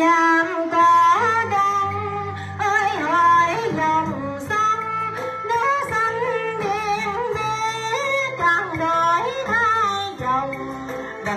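A woman singing a slow, melismatic Vietnamese song into a microphone, her voice sliding and ornamenting between notes, over instrumental accompaniment through the PA.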